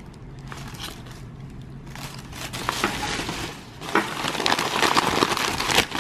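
Packing paper crinkling and rustling as it is unwrapped by hand, starting about two seconds in and getting louder about four seconds in.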